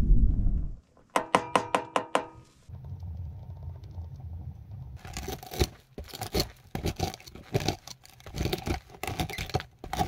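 A knife blade scraping and cracking against a dry lump of chaga, cleaning the dirt and crust off the fungus in a run of irregular scrapes from about halfway on. Earlier there is a quick series of about six ringing metallic clinks, like a spoon against a metal bowl, after a low rumble that dies away at the start.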